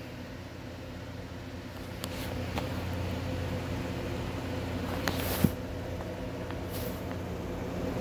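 A steady low hum from a running machine, with a few faint clicks and two brief swishes.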